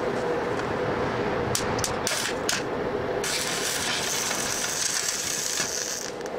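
Stick (arc) welder: a few sharp clicks as the electrode is struck against the steel, then about three seconds of steady crackling arc as a weld is run on the stand's square-tube frame, cutting off near the end.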